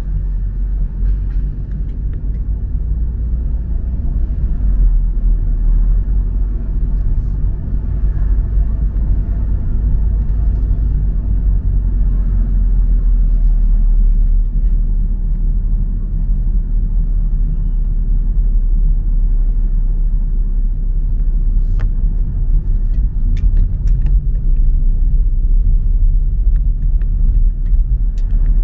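Car driving slowly, heard from inside the cabin: a steady low road and engine rumble, with a few small clicks in the last few seconds.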